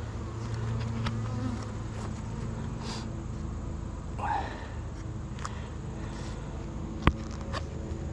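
Honeybees buzzing around an opened hive during an inspection: a steady low hum, with a few light clicks and one sharp click about seven seconds in.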